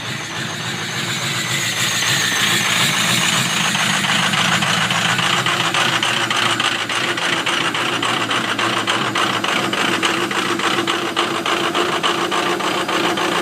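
Ford 6.0 Powerstroke V8 turbo diesel running shortly after a cold start at 18 degrees, with a heavy rapid clatter like it's running on marbles. It grows louder over the first couple of seconds, then runs steadily.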